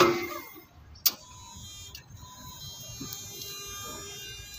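Toyota 3FBS15 electric reach truck running, its electric motors and drive controller giving a steady whine of several high tones, with one sharp click about a second in.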